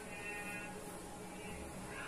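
Faint background music, with a held melodic note in the first second.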